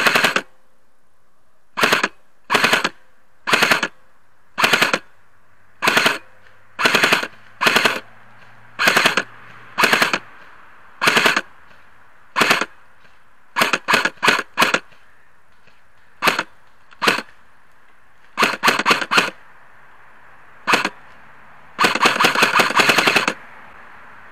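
Specna Arms SA-A08 airsoft electric rifle (M4-style AEG) firing in short rapid bursts of a few shots each, roughly one burst a second, with a longer burst of about a second and a half near the end.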